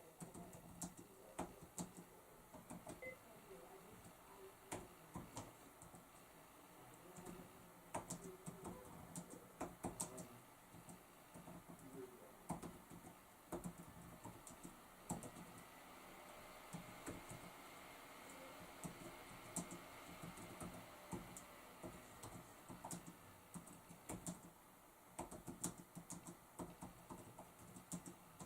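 Computer keyboard keys clicking faintly in quick, uneven runs of keystrokes: fast typing.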